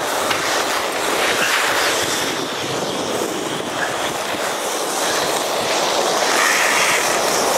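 Steady rushing and scraping of a fast slide down an icy snow crust, with wind blowing over the microphone, getting a little louder near the end.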